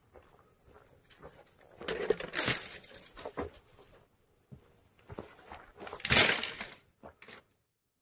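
Armful of dry, brittle branches rustling and crackling as they are carried, with two loud scraping bursts of twigs brushing close by, about two seconds in and again about six seconds in.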